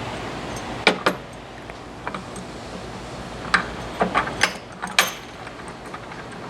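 Metal hand tools clinking against the filling machine's steel fittings as nuts are worked with wrenches: a scattered series of sharp metallic clicks and clinks, a couple close together about a second in and a cluster around four to five seconds in.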